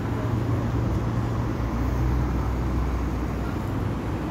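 Road traffic: a motor vehicle's engine running close by with a low, steady hum, over general street noise.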